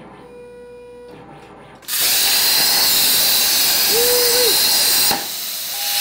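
Plasma torch on an Arclight Dynamics CNC plasma table firing its arc about two seconds in and cutting steel tube with a loud, steady hiss. The hiss drops briefly about five seconds in, then comes back.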